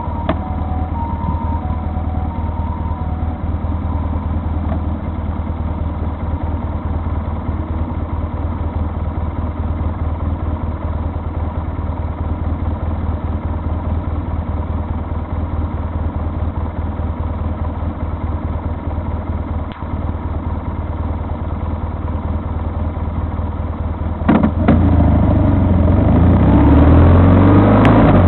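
A vehicle engine running steadily at idle, then revving up and pulling away about 24 seconds in, growing louder with rising pitch.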